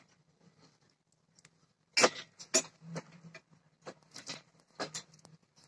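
Irregular knocks, clicks and scrapes, loudest about two seconds in and again around four to five seconds: boots stepping on timber planks on the ice while a rope is hauled in and coiled.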